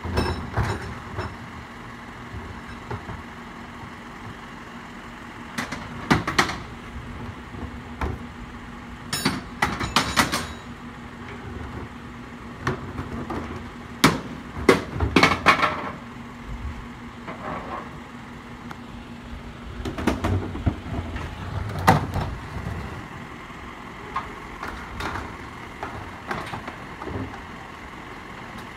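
A vehicle engine idling steadily with a low hum, with irregular knocks and clanks coming in clusters through it.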